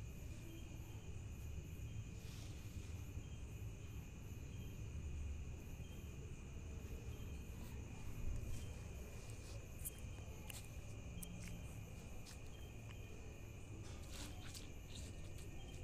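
Faint, steady chirring of insects such as crickets, a continuous high trill over a low background rumble, with a few faint clicks.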